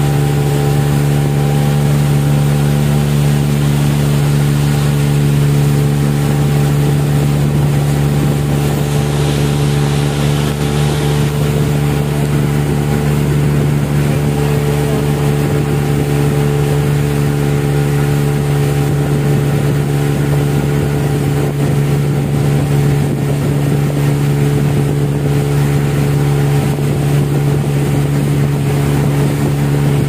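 Small motorboat's engine running at a steady cruising speed, an even drone with no change in pitch, over the rush of water along the hull.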